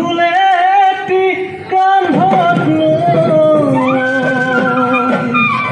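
Live Assamese Bihu music: voices singing a wavering melody. From about two seconds in it moves to long held notes that step from pitch to pitch, with a flute playing.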